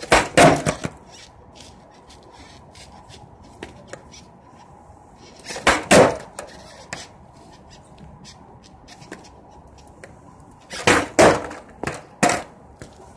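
Skateboard ollie attempts on a hard floor: the tail snapping down and the board and wheels clattering back onto the floor. This comes in three short bursts of sharp clacks, at the start, around the middle and near the end.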